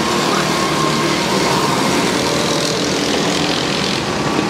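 Go-kart engines running as karts lap the circuit: a steady, continuous engine drone whose pitch wavers up and down.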